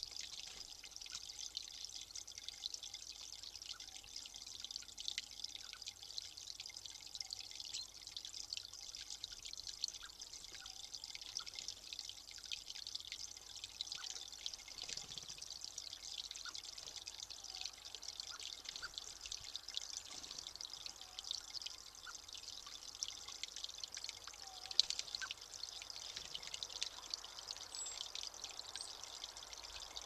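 Steady trickling of running water, a continuous crackly hiss.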